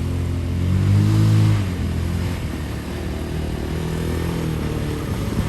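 Off-road vehicle engine running, revving up briefly about a second in and then settling back to a steady, lower run.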